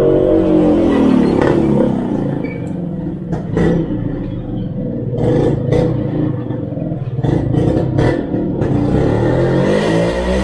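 A motor vehicle engine running close by, its pitch falling over the first two seconds and rising again near the end, as with a vehicle passing or revving. Several short clicks through the middle, with wire connectors being pushed together.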